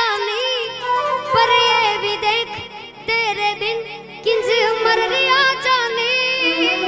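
Live Gujarati folk music: a woman's voice singing a long, ornamented wordless melody, with a short break about halfway, over sustained instrumental accompaniment.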